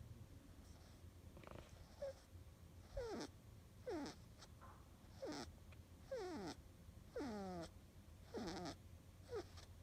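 A cat snoring in its sleep: short squeaky, whistling snores, each sliding down in pitch, about one a second.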